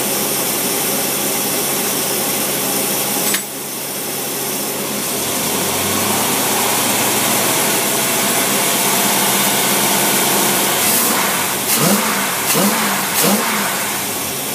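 Engine running on a Carter ABD two-barrel marine carburetor during a test run. About three and a half seconds in there is a click and the sound drops suddenly. It then builds back up slowly, and near the end the engine is blipped three quick times, its pitch rising and falling each time.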